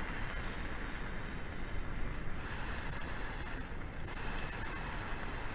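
Beef skirt steak (harami) sizzling steadily on a grill over a campfire.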